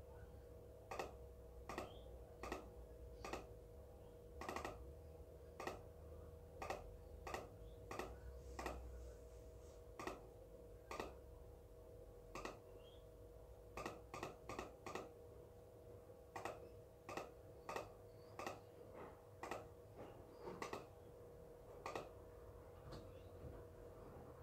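Clicks from a computer mouse and keyboard in use: sharp single clicks about one a second, with a few quick runs of two or three, over a steady faint hum.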